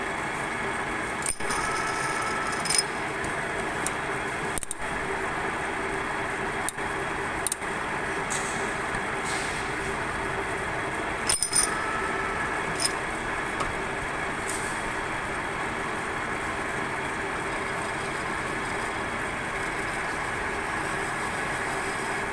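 Metal lathe running steadily with a constant machine hum, while a rusty bushing is cleaned on it; a few short metallic clinks ring out now and then, a cluster of them about eleven seconds in.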